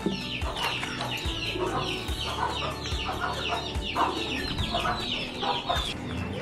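Chicks peeping in a dense run of short, high chirps that slide downward, several birds at once, with hens clucking lower underneath.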